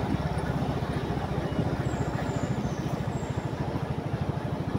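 Motorcycle engine idling close by, with an even, rapid low pulse.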